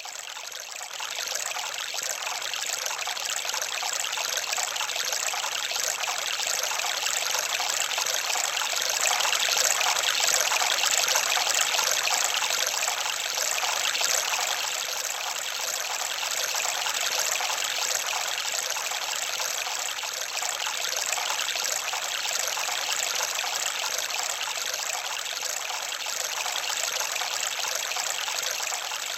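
Running water, like a small stream or trickle, splashing steadily without a break.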